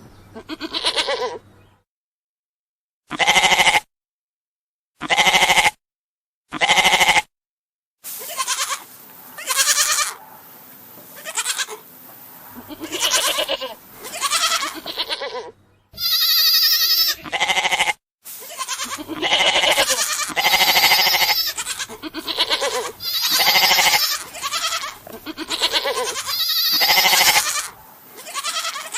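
Goats bleating: a long series of separate bleats, each a second or less. The bleats are spaced out with silence between them at first, then from about eight seconds in they come thick and fast over a faint background hiss.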